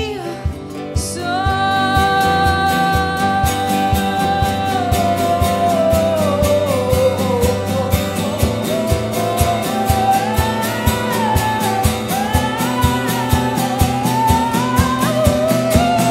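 Live acoustic song: a female voice sings a long wordless melody, holding notes that slide down and back up, over rhythmically strummed acoustic guitar with a steady beat.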